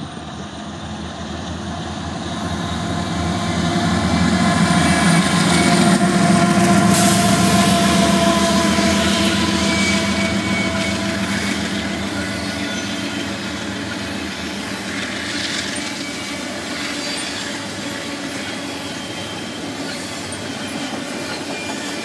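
Union Pacific diesel locomotives running past, growing louder to a peak about six seconds in, then the steady rolling of double-stack intermodal container cars over the rails with thin wheel squeal now and then.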